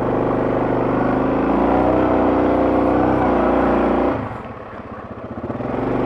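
Quad bike (ATV) engine running under throttle, its note rising about a second and a half in, easing off about four seconds in, then picking up again near the end.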